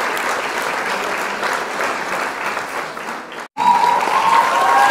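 Large crowd applauding. About three and a half seconds in, the sound drops out for an instant. It then comes back louder, with long high-pitched calls held over the clapping.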